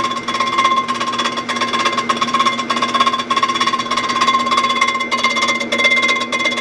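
Block-decking mill's ten-tooth cutter head running across an engine block's deck surface, a steady high whine with a fast rattle from the teeth. It is hardly cutting, only skimming the last high spots of the deck.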